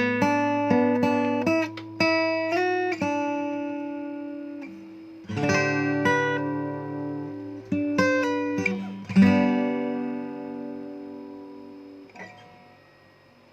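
Takamine ED05SC-NS acoustic guitar being played: a run of quickly picked single notes, then chords struck a few seconds apart and left to ring out. The last chord fades away almost to silence near the end.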